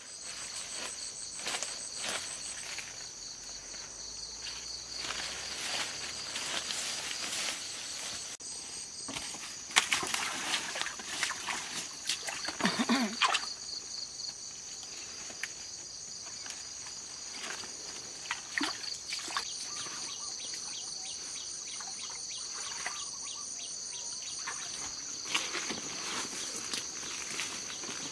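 A continuous high-pitched insect chorus with several steady pitches, over scattered rustling and snapping of leaves and plant stems being handled. About ten seconds in comes a louder run of rustles and cracks.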